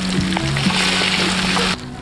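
Hot oil sizzling as a wok of baby frogs deep-fries, under background music with steady sustained notes; the sizzle cuts off abruptly near the end, leaving the music.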